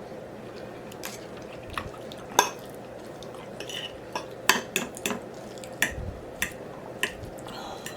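Eating at a plate: about ten short, irregular clicks and clinks of cutlery against the dish.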